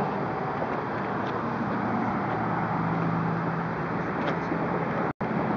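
Strong wind buffeting the microphone, a steady rushing roar that cuts out for an instant near the end.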